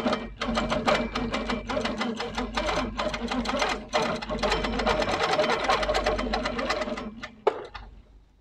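Handi Quilter longarm quilting machine stitching at speed along an acrylic ruler in a rapid, even run of needle strokes, easing off briefly about two and four seconds in. It stops about seven seconds in, followed by a single short knock.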